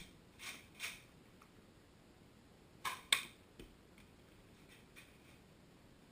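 Nerf blaster clicks: short, sharp plastic clacks, a softer pair in the first second and a sharper pair about a quarter second apart about three seconds in, then a few faint ticks.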